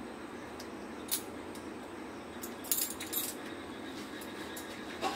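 A few light clicks and clinks of small steel kitchen utensils being handled: one about a second in, a short cluster near three seconds, and more near the end, over a faint steady hum.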